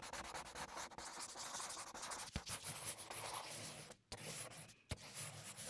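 Glass dip pen scratching across paper as it writes: a faint, even scratching with two brief drop-outs about four and five seconds in.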